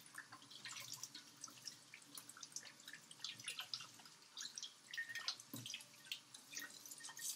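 Water from a running kitchen tap splashing over hands as they are rubbed and rinsed, dripping and spattering into a stainless steel sink, with many faint, irregular splashes: soap suds being rinsed off.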